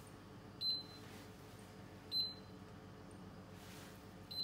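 Three short, high beeps about a second and a half apart, from an induction hob's touch controls being pressed to heat the pan.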